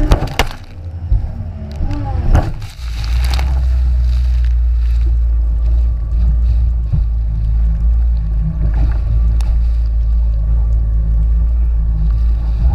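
Jet ski running over waves: splashing and hard knocks for the first three seconds or so, then a steady low rumble.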